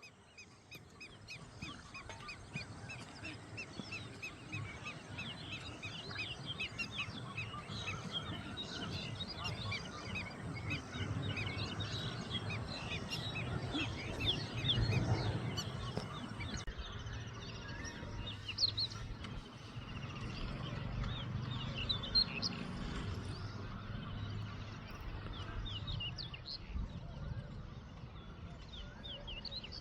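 Many small birds chirping and twittering together in a dawn chorus, short quick calls overlapping throughout, over a steady low rumble.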